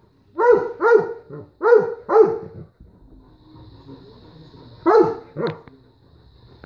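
Dog barking at a remote-control toy truck, in short pairs: about four quick barks, a lull of about two seconds, then two more.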